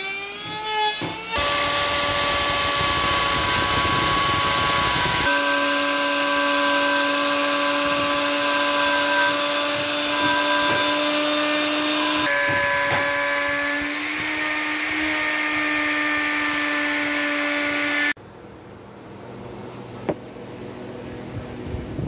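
An electric power tool running at steady speed with a constant high-pitched motor whine. Its pitch jumps abruptly twice. Near the end the whine stops and gives way to a much quieter hum with a single click.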